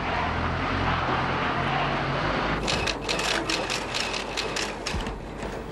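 Street sound from news footage: a vehicle engine running under a noisy background, then from about halfway a rapid, irregular run of sharp clicks.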